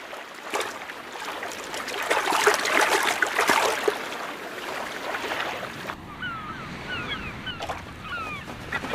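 Water splashing and sloshing as a grey seal heaves itself out of the sea onto a rock. About six seconds in this gives way to gently lapping water and seabirds calling repeatedly in short squeaky notes.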